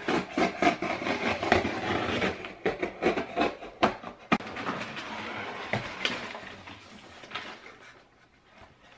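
Clear plastic packaging crinkling and rustling as parts are unwrapped and handled, with many sharp crackles and a few clicks or knocks, busiest in the first half and fading near the end.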